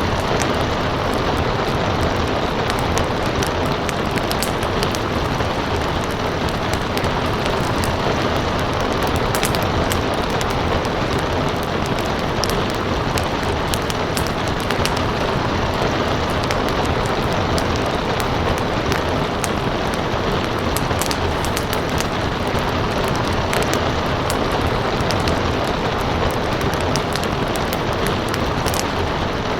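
Steady rain with a wood fire crackling, sharp pops scattered throughout over a dense even hiss.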